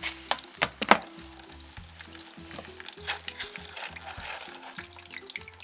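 Old, oily petrol draining in a thin stream from a moped's fuel tank outlet into a plastic tray, a steady crackly trickle and patter; the owner takes the fuel for stale petrol that is mostly oil. A few sharp knocks in the first second, and soft background music underneath.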